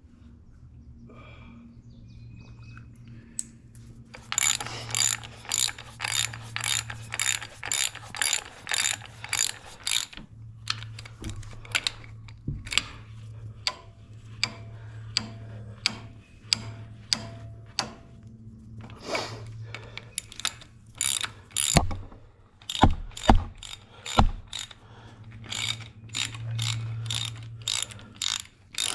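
Ratchet wrench clicking in quick, even runs as bolts are turned, with pauses between strokes and a few heavier knocks partway through. A steady low hum sits underneath.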